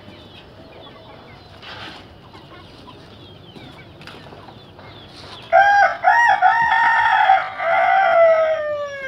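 Faint chicken clucks and chirps, then about five and a half seconds in a rooster crows loudly: a few short broken notes running into one long held note that falls away at the end.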